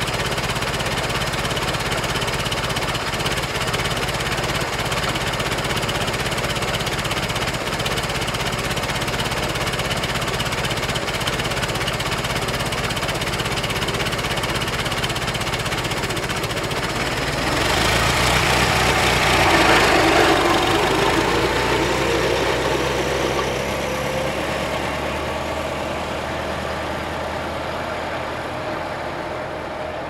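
Antique car engine running at a steady idle. About eighteen seconds in it grows louder with a faint rising whine, then gradually fades.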